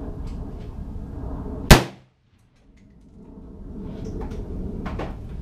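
A single shot from a DPMS Panther Arms Oracle AR-15 in .223/5.56, very loud and sharp, after which the sound cuts out for about a second and fades back in. Two fainter sharp clicks follow near the end.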